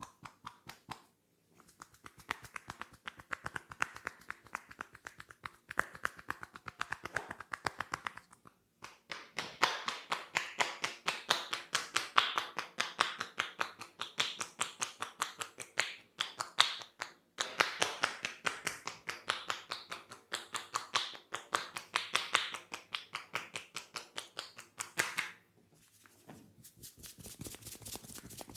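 Rapid rhythmic tapping of a head massage, hands striking the head many times a second in long runs broken by brief pauses.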